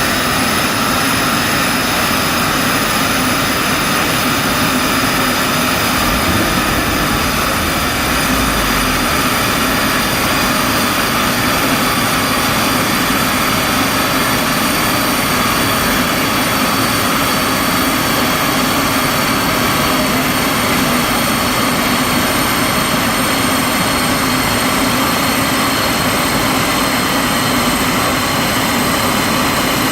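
Audi S1 running steadily on a rolling road: continuous engine, tyre-on-roller and fan noise, with a high whine that slowly eases lower in pitch.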